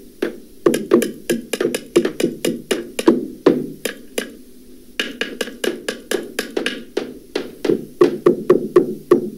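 Hammer blows, digitally lowered in pitch to sound deeper: a rapid, uneven run of sharp strikes, several a second, with a short lull about four seconds in.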